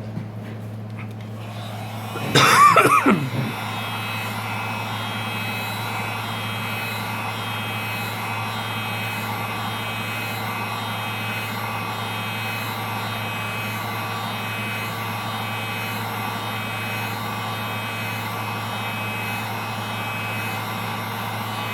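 Wagner heat gun switched on about two seconds in, with a brief loud sweeping whine as its fan spins up, then blowing steadily with a rushing noise and a faint steady whine, heating the phone's screen to soften its adhesive.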